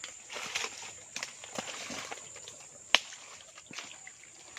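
Irregular rustling and scuffing, like handling or stepping in vegetation, with a single sharp click about three seconds in, over a steady high-pitched insect drone.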